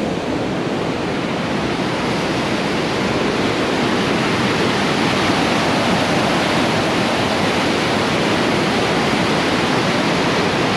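Yellowstone River rushing through white-water rapids: a steady, loud wash of churning water.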